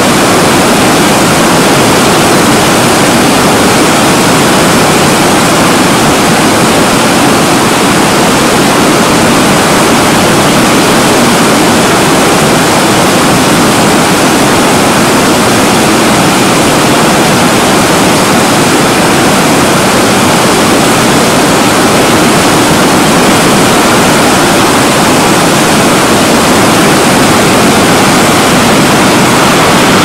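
Water cascading down rock ledges in small falls: a loud, steady rushing.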